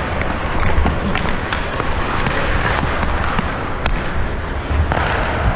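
Ice hockey play on the ice: skate blades scraping and a number of sharp clacks of sticks and puck over a steady low rumble.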